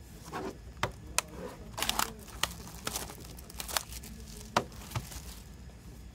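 Cellophane shrink wrap on a CD case crinkling as hands handle it, with a string of sharp crackles and clicks.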